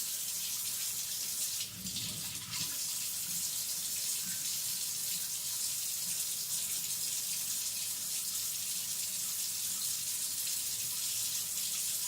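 Kitchen tap running steadily, with water splashing over a knife blade as it is washed; the splash changes briefly about two seconds in.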